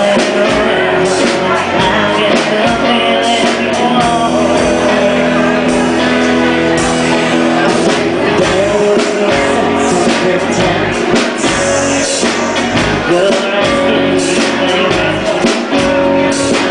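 Live rock band playing loudly: a woman singing lead over electric guitar and drums.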